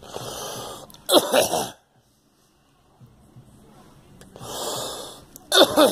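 A person coughing in two fits. Each begins with a long, wheezing breath in, followed by a loud burst of two or three harsh coughs.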